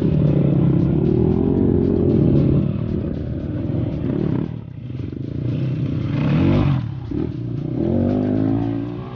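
Off-road motorcycle engine working under load, its revs rising and falling; there is a sharp rev-up about six seconds in, and the revs drop again a moment later.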